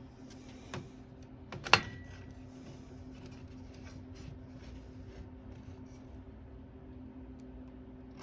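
Hand work on an aluminum window frame: a loud sharp metallic clack a little under two seconds in, ringing briefly, after a smaller click, then light scattered clicks and rustles of parts and tools being handled, over a steady low hum.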